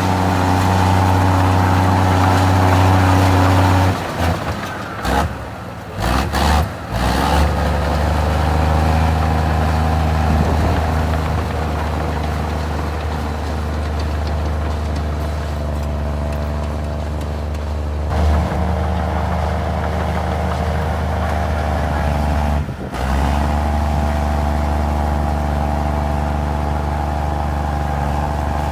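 Komatsu D53E crawler bulldozer's diesel engine running with a steady low drone. About four seconds in, the engine note drops and breaks up for a few seconds, then settles back to a steady pitch, with another brief dip later on.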